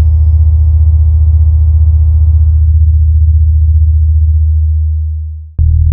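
DJ sound-check music: a loud, sustained deep synth bass tone, its upper overtones fading out about halfway through and the bass dying away, then a new bass note slams in suddenly with a sharp click near the end.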